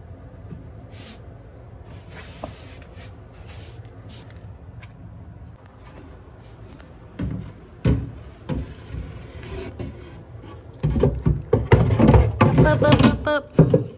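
Wooden nightstand cabinet being handled: its door and panels knock and rattle, a few knocks partway through, then a dense run of loud clattering in the last few seconds.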